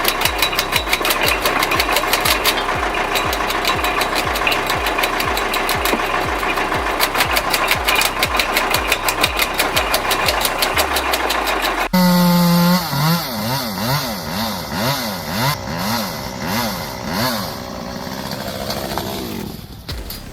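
An engine-driven wood machine running with a steady, regular thumping beat, about two to three a second. It cuts off abruptly and is replaced by a small engine revving up and down over and over.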